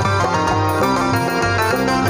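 Live band playing an instrumental passage, with electric guitar and keyboard notes over bass. No singing.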